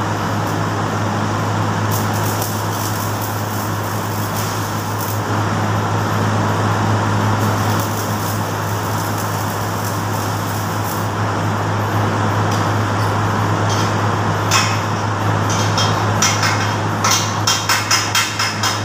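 Stick welding: the electrode's arc crackling and sizzling steadily over a constant low hum. Near the end the arc stops and a chipping hammer raps the weld several times a second, knocking off the slag.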